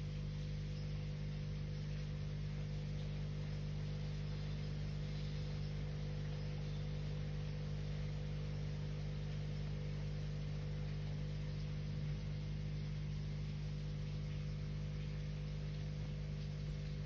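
A steady low hum made of several held tones under a faint hiss, with no change in pitch or level.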